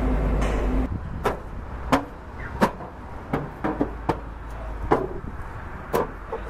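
A steady rumble with a held hum cuts off about a second in. Then about a dozen sharp knocks and clacks follow at uneven intervals over a low background rumble.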